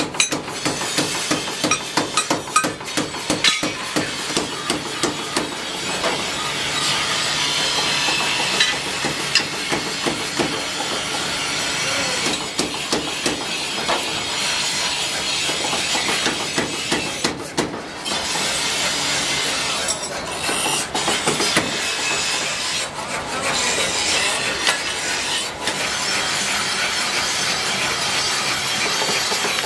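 Blacksmith's forge work: a run of sharp hammer blows on steel in the first few seconds, then a steady noisy hiss with scattered knocks and clatter of tools and a mechanical power hammer.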